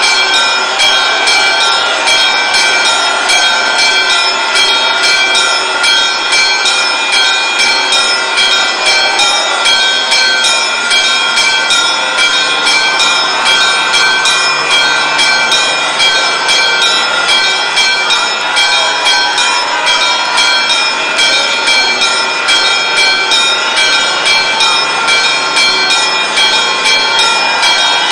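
Church bells pealing rapidly and without a break, their tones overlapping in a dense, ringing wash, as rung to announce the Holy Fire's coming out of the tomb.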